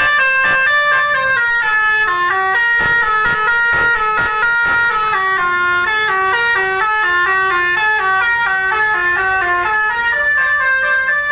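Telolet Basuri musical bus horn playing a melody: a run of held notes stepping up and down one after another without a break.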